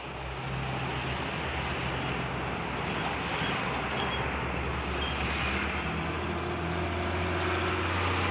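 Busy road traffic passing close by: diesel trucks and motorcycles running. A container truck's engine comes closer and grows louder near the end.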